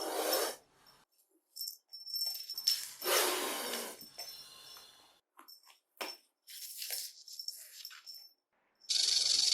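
Scattered rustles and clicks with a faint high jingle, then about nine seconds in a loud, steady snake hiss starts and holds.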